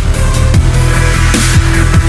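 Loud electronic music with a heavy bass line and fast, punchy kick drums, with a crash about once a second.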